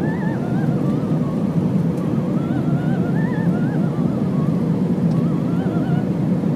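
Airliner cabin noise: a steady low rumble of the jet engines and airflow, heard from a window seat as the plane descends low to land. A faint wavering whine runs over it.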